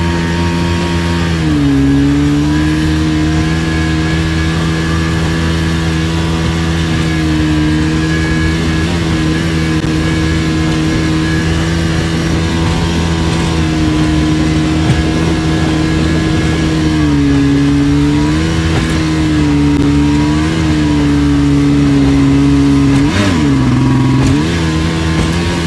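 Yamaha outboard jet-drive motor running under way at a steady throttle, its pitch dipping and coming back up a few times as the throttle eases and returns, most deeply near the end.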